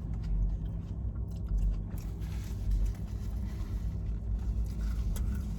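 A person chewing and biting food close to the microphone, with short wet and crunchy mouth clicks. A steady low hum runs underneath.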